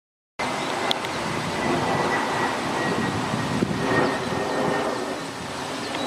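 Steady rumble of passing vehicles, with a thin steady high whine above it.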